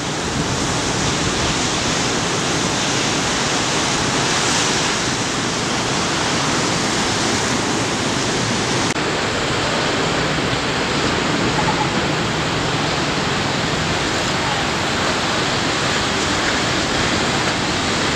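Ocean surf breaking and washing in, a steady, even rushing noise with no letup.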